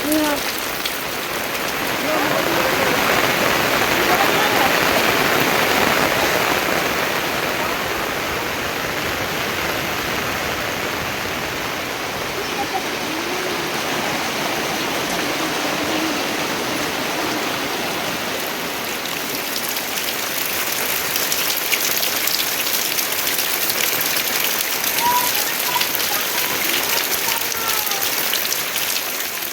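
Steady rain falling, an even hiss of drops that grows denser and more crackling in the second half.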